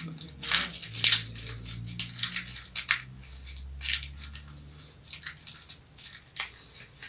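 Match heads being scraped and crushed off safety matches held in their box with a small metal tool: a run of short, irregular dry crunching and scraping strokes.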